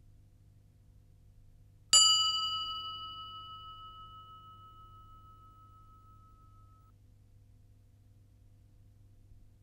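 A single bell-like ding sound effect, struck once about two seconds in and ringing out with several tones that fade away over the next few seconds.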